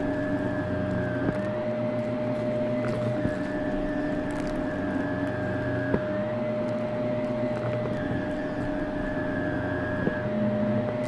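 Shark upright vacuum cleaner running on carpet: a steady motor whine whose tone shifts back and forth every few seconds as the cleaner is pushed and pulled. There are a few sharp clicks and faint crackles of debris being sucked up.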